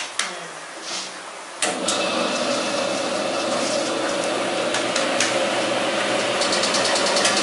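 A steel bowl clinks against a large steel wok of dough, then about one and a half seconds in a machine motor switches on abruptly and runs steadily. Near the end a fast, even ticking rattle joins the running machine.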